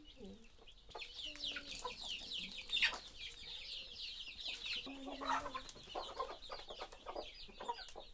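Chickens clucking, with a dense run of short, high, falling peeps from about a second in.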